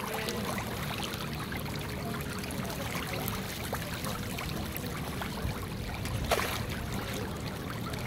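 A dense shoal of fish splashing and churning at the water's surface: many small splashes and a larger splash about six seconds in, over a steady low rumble.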